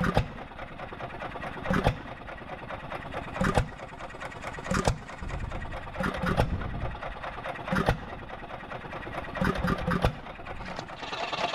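1946 Cooper TB two-horsepower hit-and-miss stationary engine running unloaded: a sharp firing bang about every one and a half seconds, with lighter clicking in between. The engine coasts between bangs while the hit-and-miss governor holds the push rod open, skipping firing strokes.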